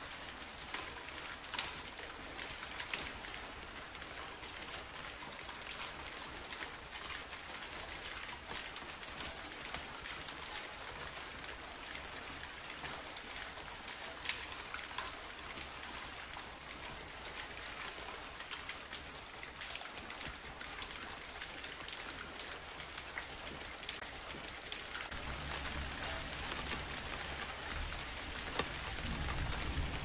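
Steady rainfall, an even hiss dotted with the sharp ticks of single drops landing close by. A low rumble comes in about five seconds before the end.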